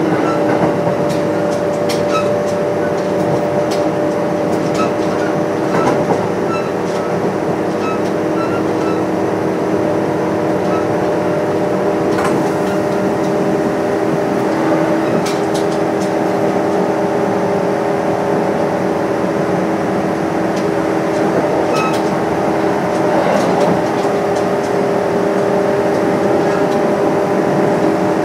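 Kintetsu 8800 series electric train running at a steady speed, heard from on board: a steady hum of several even tones over rolling noise, with occasional clicks.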